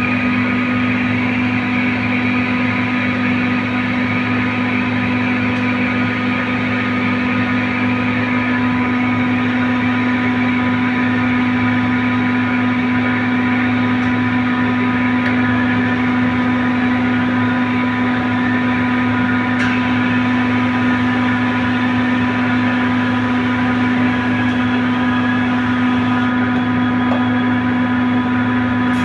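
Compressor running with a steady, even hum that holds the same pitch throughout.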